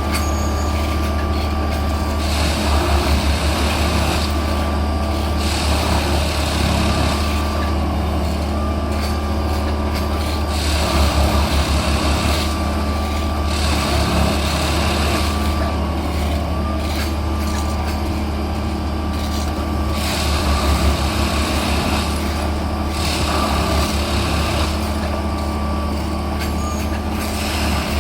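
Plasser & Theurer track-maintenance machine running: a steady low diesel drone with a thin steady whine above it. A rushing noise swells and drops away every few seconds, and the drone pulses briefly now and then.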